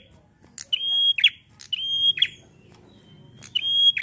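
Caged prenjak calling loudly: three repeated phrases about a second apart, each a short steady high whistle that ends in a quick falling note.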